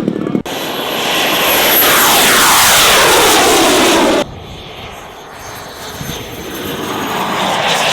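Radio-controlled model aircraft flying past close by, its engine noise falling in pitch as it passes; the sound cuts off suddenly about four seconds in. A second, quieter pass follows and grows louder toward the end.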